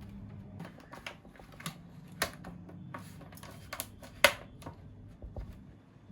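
Irregular clicks and light knocks of a laptop's back panel being refitted and its screws driven back in, the sharpest click about four seconds in.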